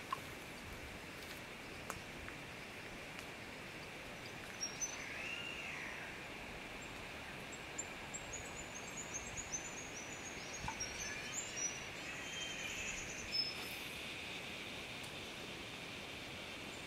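Bush ambience at dusk: a steady high insect drone with bird calls over it, one rising-and-falling call about five seconds in and a run of quick, high, falling chirps in the middle.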